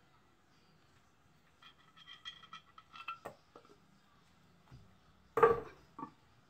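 Metal paint cans clinking as they are handled: a run of light ringing clinks, then a sharp metallic knock about five seconds in and a smaller one just after.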